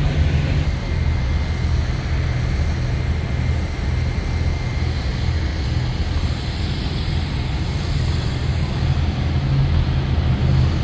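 Semi truck's diesel engine idling with a steady low rumble.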